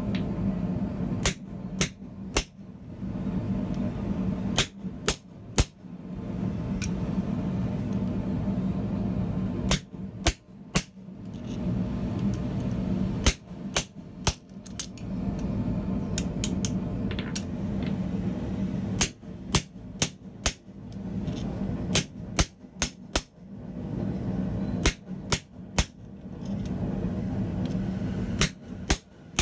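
Hand hammer striking the top die of a blacksmith's guillotine tool to press a decorative pattern into a red-hot steel spatula handle. The sharp metallic blows come in quick groups of two or three, with pauses of a few seconds between groups, over a steady low hum.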